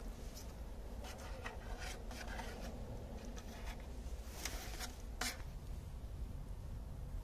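A rag in gloved hands rubbing and wiping the flange of a plastic intake manifold, cleaning the mating face before sealant goes on. It comes as a series of short scuffing strokes, the strongest about four and a half and five seconds in, over a steady low hum.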